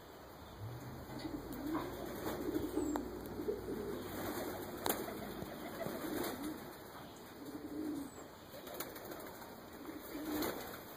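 Pigeons cooing in repeated low, warbling phrases, with a few sharp claps or clicks; the loudest comes about five seconds in.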